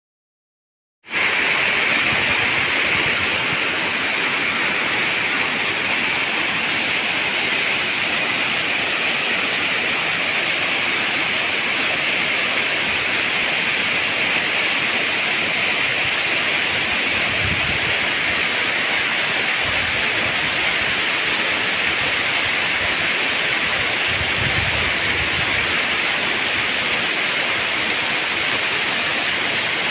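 Waterfall's falling water rushing steadily. It cuts in abruptly about a second in, after a moment of silence.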